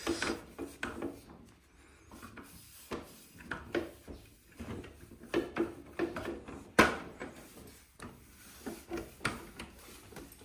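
A cloth wiping and scrubbing the air conditioner's plastic casing in short, irregular strokes, with one sharp knock about two-thirds of the way through.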